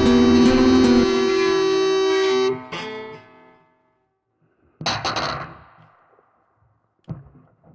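Background music with guitar-like plucked chords ends about two and a half seconds in, its last note dying away. After a silence comes a sudden short noisy hit just before the five-second mark, then a fainter one near the end.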